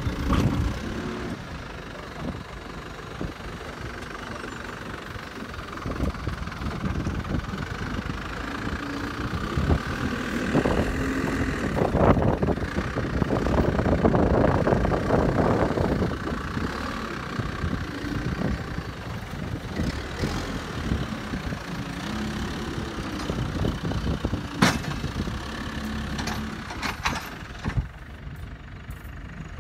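Backhoe loader's diesel engine running steadily, rising in level for several seconds midway as it works. A few sharp knocks sound near the end.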